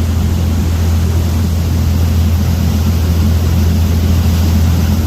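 A steady low mechanical hum, running evenly without a break.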